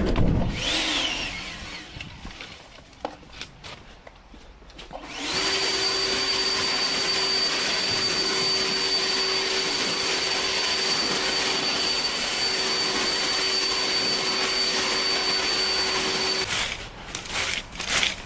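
A cordless battery power tool's electric motor runs at a steady speed with a high whine for about eleven seconds, then stops. It starts about five seconds in, after some scattered ticks and knocks.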